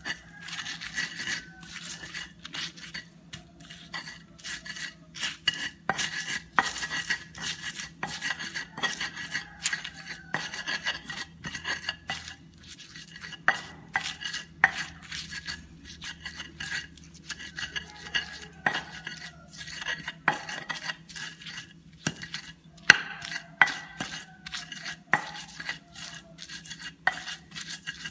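Stone pestle crushing and grinding chillies and shallots in a stone mortar (ulekan and cobek): a quick, irregular run of stone-on-stone knocks and scrapes that keeps going without a break.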